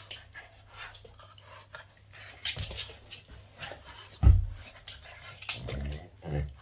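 Boston terrier playing rough with a person's hands: scattered clicks and rustles of its mouthing and pawing, with one heavy thump about four seconds in as it jumps up at the hand.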